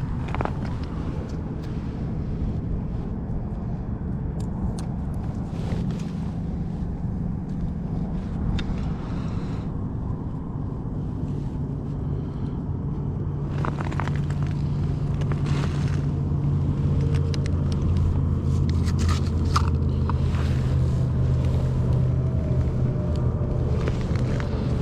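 A steady low engine-like drone that grows stronger about halfway through, with scattered light clicks and taps over it.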